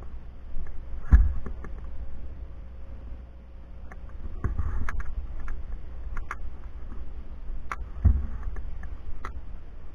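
Low rumble of wind buffeting the camera microphone, with scattered sharp clicks and two heavier thumps, about a second in and about eight seconds in, from the camera being handled as it pans.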